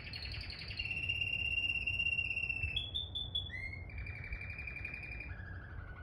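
Male canary singing: a string of fast trills, each held on one pitch, stepping to a new pitch every second or two.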